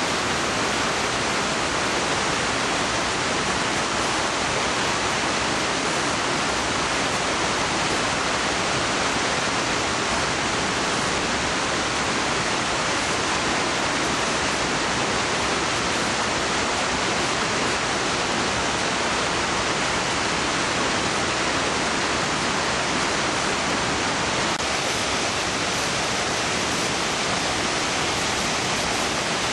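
Steady rush of river water pouring over a stepped weir and churning in the white water below.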